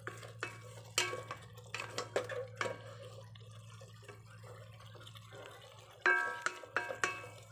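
Wooden spatula stirring pieces of pork in sauce in an aluminium pot, with scraping and knocks against the pot, a quieter stretch in the middle, then sharper ringing clinks near the end. A steady low hum runs underneath.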